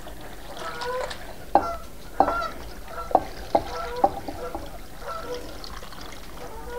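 Rehydrated dried apple slices and their soaking water poured from a bowl into a colander: a light trickle with several sharp wet plops and slaps as the slices land. Short pitched honking calls of fowl come in between.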